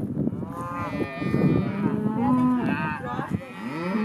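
Several cattle mooing in long, overlapping calls, with one call held on a steady pitch and another rising near the end.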